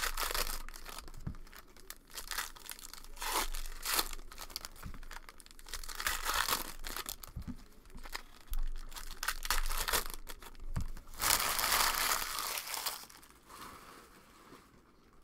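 Foil wrappers of Panini Prizm Football card packs being torn open and crinkled, in a run of crackling bursts with a longer stretch of crumpling a little past the middle; it dies down near the end.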